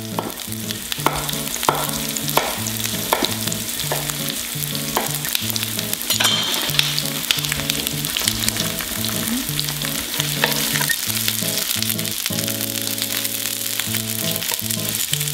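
Sliced onions sizzling in olive oil in a frying pan and being stirred with a wooden spatula, sautéing until translucent. Background music with a steady low bass line plays underneath.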